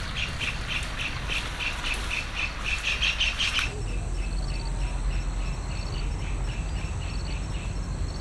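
Outdoor wildlife chirping: a quick run of high chirps, about three a second, then from about halfway a fainter, slower series of chirps over a steady high-pitched hum, all above a low background rumble.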